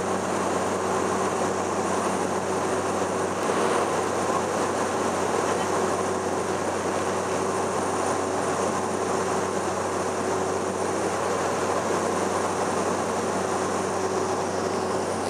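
Cessna 208 Caravan's Pratt & Whitney PT6A turboprop and propeller running steadily in flight, heard from inside the cabin as a constant drone with an even hum and airflow hiss.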